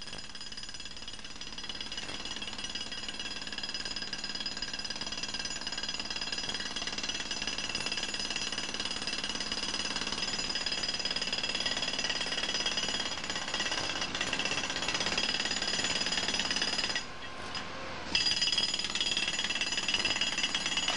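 Pneumatic breaker (jackhammer) hammering steadily into the roadway. It stops for about a second near the end, then starts again.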